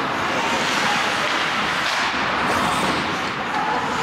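Steady background noise of an ice hockey rink during play, an even wash of sound with a few faint knocks.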